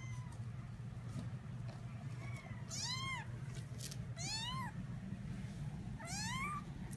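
18-day-old kitten mewing: about four high-pitched mews, each rising and then falling in pitch, the loudest about three seconds in.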